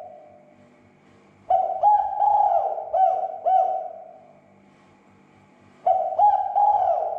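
Spotted dove cooing: two phrases of several low, repeated coos, the first beginning about a second and a half in, the second near the end, with a quiet gap between them.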